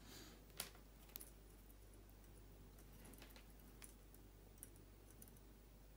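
Near silence: room tone with a few faint, scattered clicks from hands handling the twisted resistor leads, the helping-hands clips and the multimeter probe.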